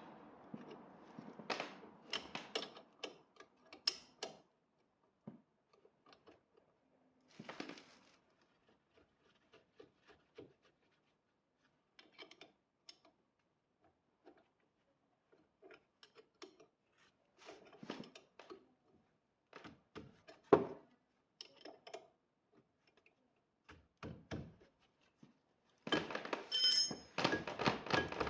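Scattered clicks, taps and knocks of hand tools and parts being handled, with a denser clatter near the end.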